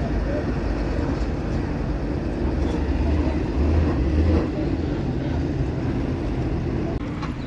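Engine of heavy road-construction machinery or a vehicle running with a steady deep rumble, swelling louder for a couple of seconds in the middle.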